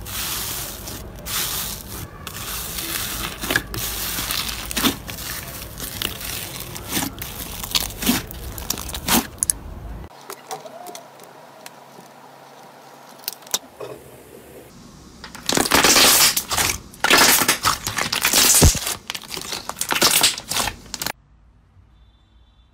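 Hands squishing and kneading foamy slime full of foam beads: a dense crackling and popping of air pockets with sharp clicks. About ten seconds in it drops to a quieter stretch, then loud crackly squishing bursts of slime being pressed, which stop suddenly shortly before the end.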